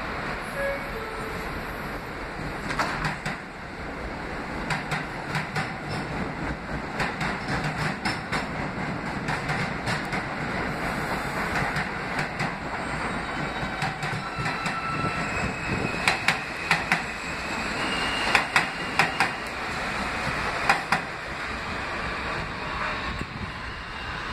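R160 subway train running on the rails, its wheels clicking irregularly over rail joints, with a thin high wheel squeal about two-thirds of the way through.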